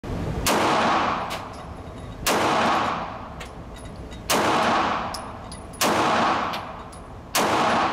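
Five shots from a 9mm Glock 43X pistol, fired slowly at an even pace about one and a half to two seconds apart, each with a long echoing tail off the walls of an indoor range. Fainter ticks come between the shots.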